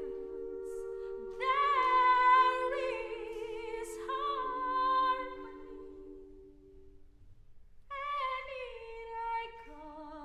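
Mixed choir singing a cappella: several voice parts holding chords with vibrato. The phrases fade out about six seconds in, and a new phrase begins a couple of seconds later.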